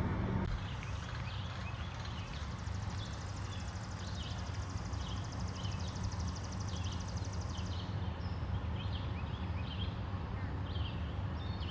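Outdoor ambience: birds chirping again and again over a steady low rumble, with a fast, high, even trill that stops about two-thirds of the way through.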